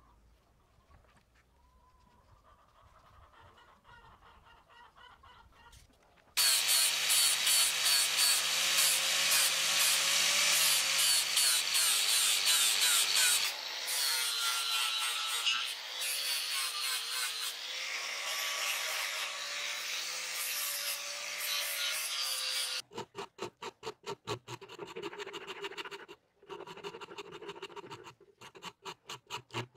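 Angle grinder with a sanding disc running against a wooden knife handle, its motor whining loudly for about sixteen seconds after a quiet start, then stopping. It is followed by a rasp drawn over the wood in rapid rhythmic strokes.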